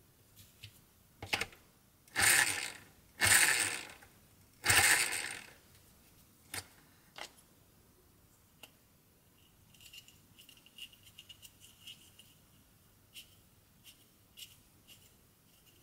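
RC buggy differential gears turned by hand in their plastic housing: three rough grinding bursts a few seconds in, then scattered clicks and a run of light ticking later on. The crown gear is a wrong, thicker batch whose teeth don't mesh properly.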